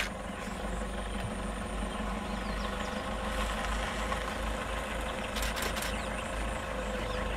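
Safari jeep engine idling steadily, with a few quick clicks about five and a half seconds in.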